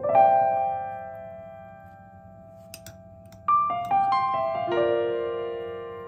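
Background piano music: a chord struck at the start that slowly fades, then a quick run of several notes about three and a half seconds in.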